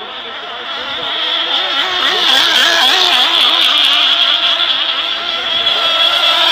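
Several radio-controlled racing hydroplane boats running their engines at high revs. Their pitches waver and overlap, and the sound grows louder as the boats come close.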